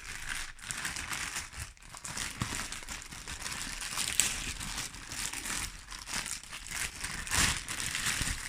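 Packaging around a wireless access point's mounting panel crinkling and rustling continuously as it is unwrapped, with irregular louder crackles, the loudest about four seconds in and again near the end.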